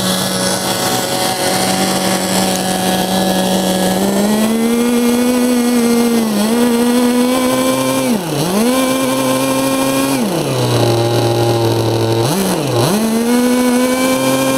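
K&B .82 two-stroke glow engine driving a Turbax III ducted fan with a cut-down 9-blade Ramtec rotor, running at high speed and being throttled up and down. Its pitch holds steady, rises about four seconds in, dips sharply a few times, falls to a lower speed around ten seconds, then revs up again and drops near the end.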